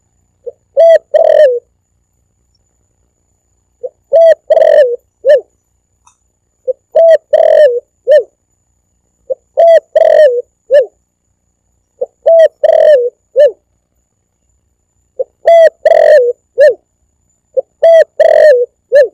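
Spotted dove (tekukur) cooing, a lure call for hunting doves. Seven phrases of a few quick coos closing with a separate falling coo, repeated about every two and a half to three seconds.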